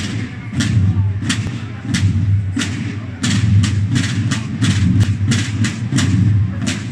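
Procession drum band playing: sharp drum strikes about three or four a second, over a deep, continuous low drum rumble.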